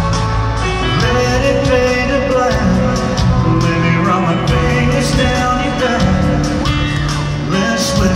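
Live band playing with a male lead singer, amplified through an arena PA and heard from the audience seats.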